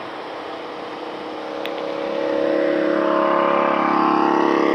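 Wind and road noise on a moving motorcycle, then a passing Harley-Davidson Forty-Eight's V-twin engine growing louder from about two seconds in as it pulls alongside, holding a steady note.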